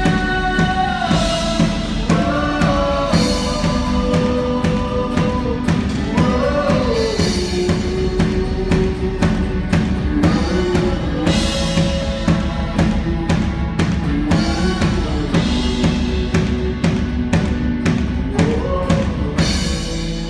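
Live band playing a song: drum kit keeping a steady beat under keyboards and guitars, with a held, sliding melody line on top. The band drops away at the very end.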